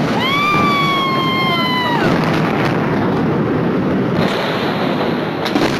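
Sustained roar of a massive chemical-warehouse explosion, a steady noise-like rumble that carries on after the blast's sudden crack and drops away abruptly at the very end. A long high-pitched wail sounds over it for the first two seconds.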